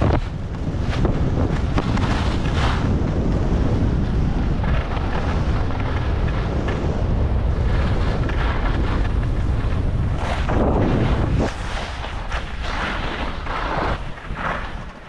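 Wind buffeting an action camera's microphone during a fast ski run, with skis hissing and scraping over hard-packed groomed snow in repeated swishes through the turns. The wind rumble eases about eleven seconds in, leaving the ski scrapes plainer.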